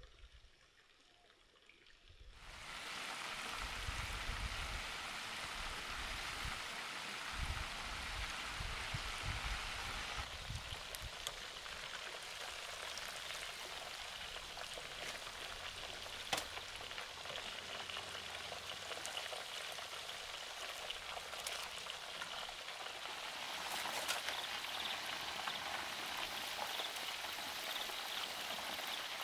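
Breaded chicken drumsticks deep-frying in a large pan of hot oil: a steady sizzle that starts about two seconds in, with a few sharp clicks.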